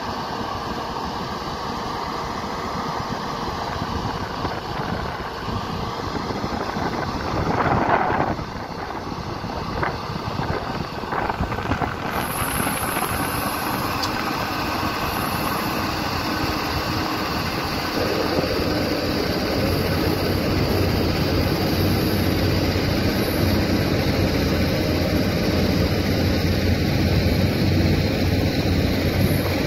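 Heavy diesel engines of a Caterpillar 320D excavator and a loaded dump truck running, with wind on the microphone. A brief louder rush comes about eight seconds in, and the dump truck's engine grows louder and steadier about two-thirds of the way through as it moves off.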